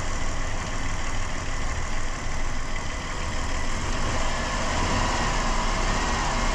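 2007 Dodge Caravan engine idling steadily while it draws Seafoam intake cleaner from the can through a vacuum hose, with a faint high whistle growing stronger in the second half.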